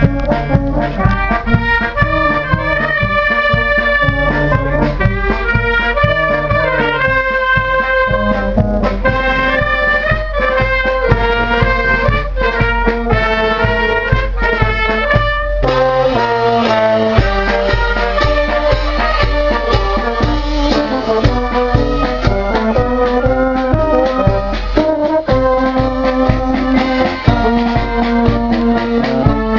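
Live Maltese marching brass band playing as it walks: trumpets and euphoniums carry the tune over a steady bass-drum beat and cymbals. The sound turns fuller about halfway through.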